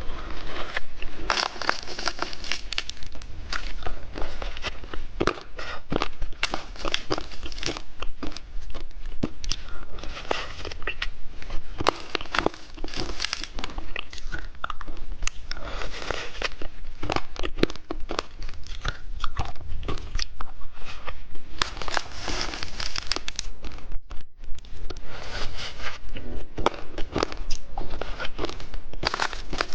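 Hard-candy lollipop being bitten and crunched up close, with continuous crackly crunching and clicking and a brief pause about 24 seconds in.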